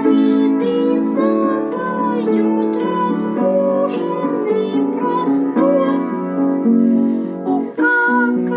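A boy singing a song with piano accompaniment.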